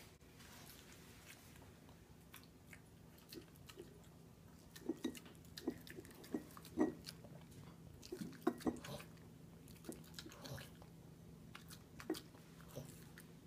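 A Boston terrier biting and chewing a boiled pork rib on the bone: irregular clicking, crunching bites, busiest from about five to nine seconds in.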